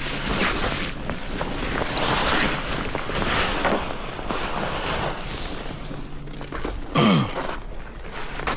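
Rushing, wind-like noise that swells and eases about once a second, with a faint low hum underneath. A short pitched sound falls in pitch about seven seconds in.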